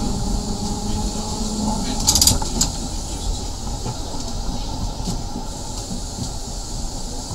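Nesa 929, a 1934 vintage electric tram, running on its rails with a steady rumble. A low hum fades out about two seconds in. Just after it comes a brief high-pitched sound, the loudest moment.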